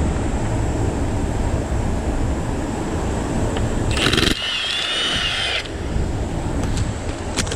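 Steady low rumbling noise. About four seconds in, a power tool whirs for about a second and a half, its pitch wavering. A few faint clicks come near the end.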